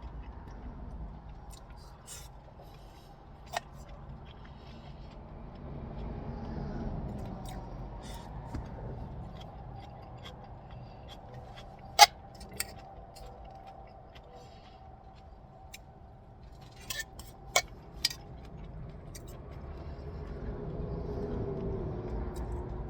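Tableware clinking now and then during a meal: a few sharp, single clicks, the loudest about twelve seconds in and a quick cluster near eighteen seconds. These come over a low, steady hum.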